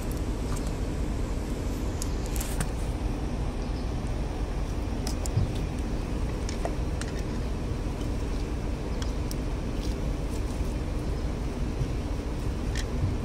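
Scattered small plastic clicks and taps as a replacement PCV valve cap and its spring are pressed into place on a BMW N13 engine's valve cover, over a steady low background rumble.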